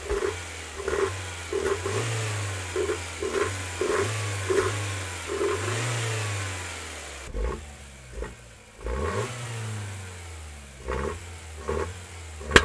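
BMW M44 1.9-litre four-cylinder engine on individual throttle bodies, revved in quick throttle blips from idle, with its intake note heard from the engine bay. About halfway there is a cut to a second take with fewer, more widely spaced blips. The two takes compare the induction note before and after a straight-through exhaust, which changes the intake note through valve overlap.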